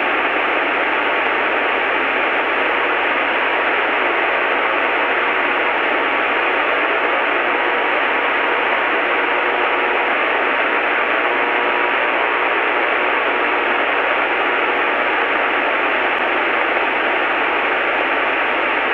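Steady hiss of cockpit noise of a T-34A Mentor trainer heard through the aircraft's intercom, narrow-sounding like a radio, with a steady high tone held throughout.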